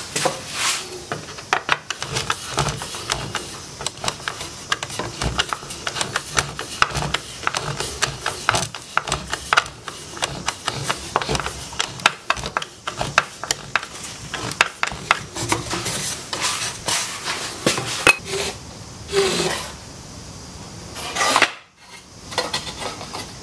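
Screwdriver working the pivot bolt and nut of a wooden folding table's leg: a long run of quick, irregular metal clicks and scrapes. Near the end the wooden table is handled with a louder clatter.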